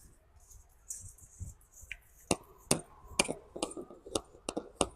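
Cable gland parts being screwed together and tightened by hand, giving a series of about eight sharp clicks, roughly two a second, that start about two seconds in.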